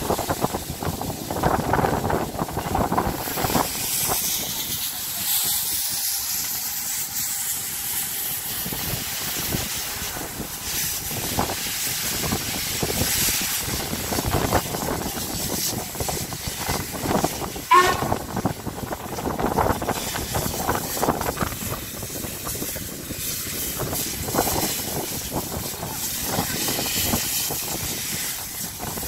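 Royal Scot class 46100, an LMS three-cylinder 4-6-0 steam locomotive, runs slowly into the station and then stands, with steam hissing and irregular chuffs and clanks. A brief high wavering squeal comes about 18 seconds in and is the loudest moment.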